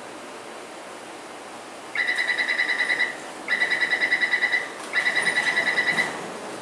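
Taipei Metro door-closing warning buzzer: three bursts of rapid high beeping, about ten beeps a second, each about a second long with short pauses between. It signals that the platform screen doors and train doors are shutting.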